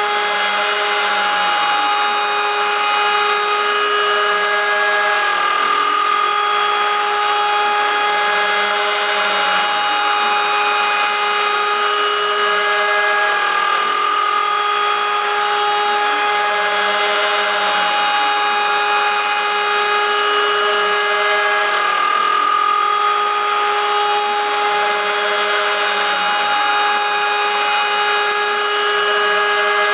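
CNC router spindle milling 6061 aluminium with an end mill on an adaptive toolpath: a steady whine of several high tones over cutting noise, shifting slightly in pitch every few seconds as the cut changes.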